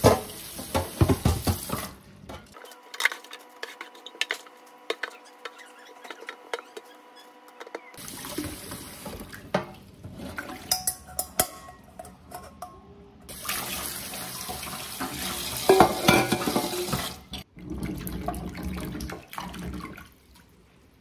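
Kitchen tap water running into a stainless steel sink as vegetables are rinsed in mesh strainers, in several stretches with quieter gaps between. Clinks and knocks of the metal strainers against the sink come throughout.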